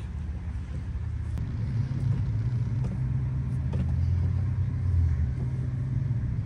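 Car engine and tyre rumble heard from inside the cabin as the car drives slowly. It is a low, steady drone that grows a little louder as it goes.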